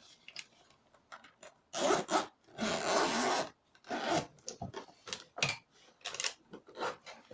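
A package being opened by hand: a series of rasping, zipper-like strokes and rubbing, the longest and loudest stroke about three seconds in lasting close to a second.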